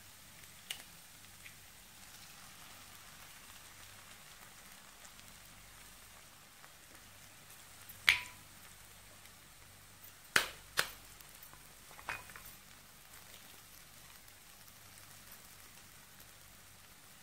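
Faint, steady sizzle of egg white cooking in a pan of onion-tomato masala, broken by a few sharp taps and clicks; the loudest are a pair about ten seconds in.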